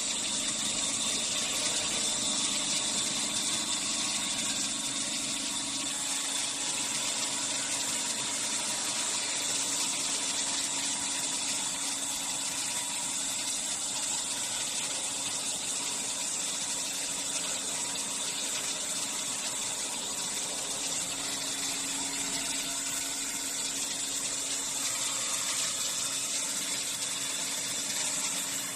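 Horizontal resaw bandsaw running steadily: a constant machine hum under a bright, even hiss.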